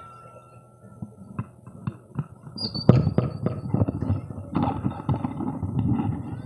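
Audience clapping: a few scattered claps at first, building about three seconds in into dense, irregular applause. A brief high squeal comes just before the applause swells.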